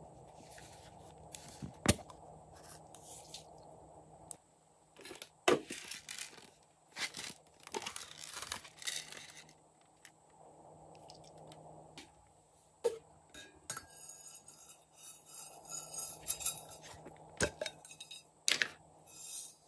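Hands opening a plastic toy cup and adding confetti sprinkles onto slime: scattered sharp clicks and knocks, with stretches of rustling, scratchy handling noise.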